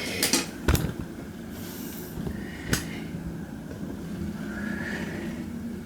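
A few light clicks and knocks of a light bulb being handled and taken out of its socket, mostly in the first second with one more near the middle, over a low steady background rumble.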